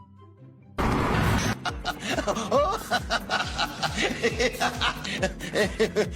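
Soft, sparse music, then about a second in a sudden cut to much louder music with a fast, sharp beat and voices laughing over it.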